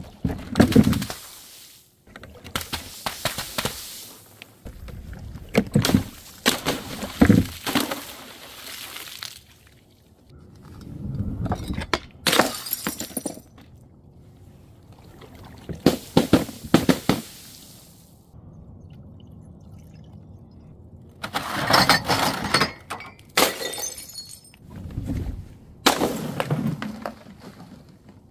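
A series of about nine drops from a height onto concrete paving slabs, each a sudden smash: liquid-filled balloons bursting and splashing, and glass breaking, with quieter gaps between the drops.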